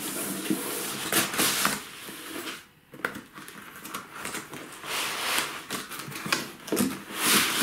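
Cardboard laptop box being opened and black foam packing inserts pulled out: rubbing and scraping of cardboard and foam, with a brief pause about two and a half seconds in and a louder scrape near the end.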